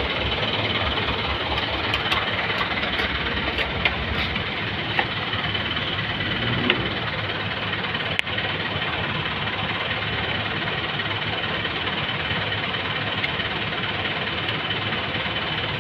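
Steady engine-like running noise with a thin high whine throughout, and a few light clicks and taps from parts being handled.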